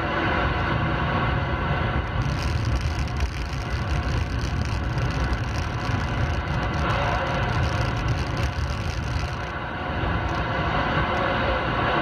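Steady road and tyre noise inside a moving 2013 Ford Fusion S, mixed with hiss from a CB radio turned up loud; the hiss turns brighter from about two seconds in until near the end.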